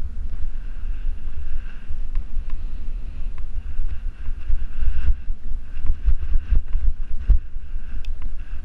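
Wind buffeting the microphone of a GoPro action camera on a moving bicycle, a loud, uneven low rumble, with a steady hiss of the tyres on the road and a few sharp knocks of the mount over bumps about five to seven seconds in.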